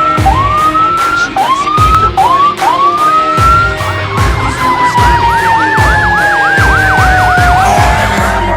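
Emergency sirens sounding on a responding fire engine. First come several short rising whoops. Then a long wail falls slowly in pitch while a fast yelp runs over it, and the wail ends near the end.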